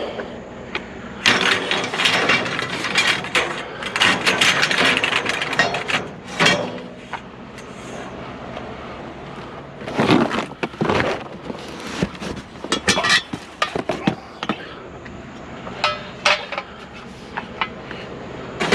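Scrap being handled and knocked about: a long run of clanking, clinking and rattling impacts in the first few seconds, then shorter bursts of clatter later on.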